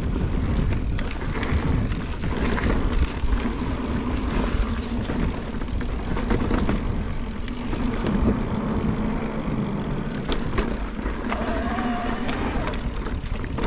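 Mountain bike riding down a dirt singletrack: a steady rumble of tyres and wind on the microphone, with constant rattles and clicks from the bike over roots and rocks. There is a brief squeal near the end.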